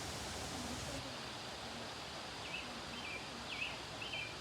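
Steady outdoor background hiss. From about halfway through, a bird gives a quick series of about six short, repeated chirps.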